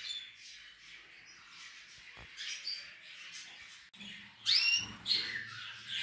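Small caged finches chirping: a few scattered short calls, the loudest a pair of sweeping chirps about four and a half seconds in.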